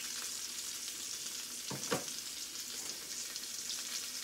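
Salmon fillet sizzling steadily in a hot skillet with melting butter, with one brief knock about two seconds in.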